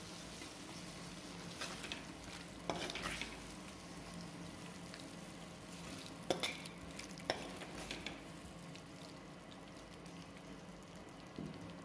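A spoon scraping and knocking a few times in a kadhai as the cooked watermelon-rind sabzi is dished out, over a faint steady sizzle from the pan, still hot after the gas was turned off.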